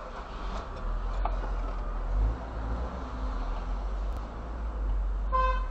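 Low rumble of city traffic around a stopped car, then a car horn starts honking just before the end.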